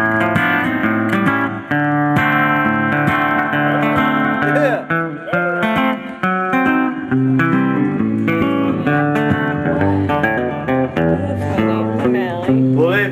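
Acoustic guitar strummed and picked in an instrumental break, the chords changing every second or so.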